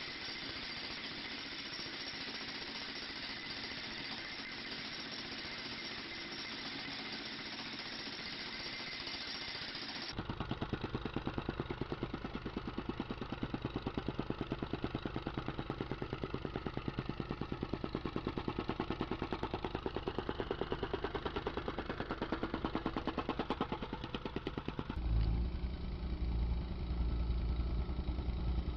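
Jackhammer-type machine running. A steady noisy rush for about ten seconds cuts to a fast, even pounding, then near the end cuts again to a heavier, deeper running.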